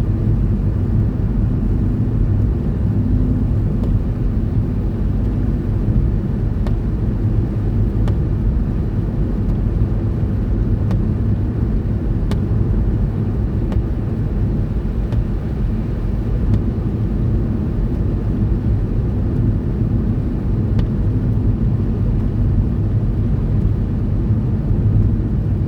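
Steady low road and engine rumble heard inside a car's cabin, travelling at about 40 mph on a snow-covered motorway, with a few faint clicks.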